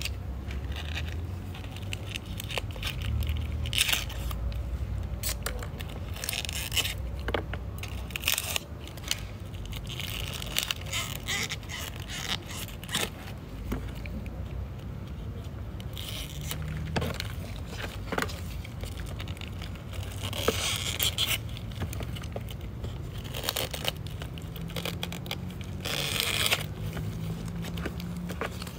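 Dead, dried leaves being pulled and rubbed off succulent rosettes by hand: irregular crisp crackles and scrapes in short bursts.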